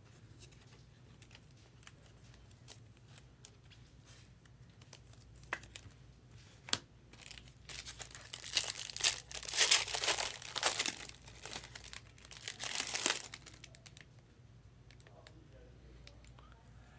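Baseball-card pack wrapper being torn open and crinkled for several seconds about halfway through, after a few faint clicks of cards being handled.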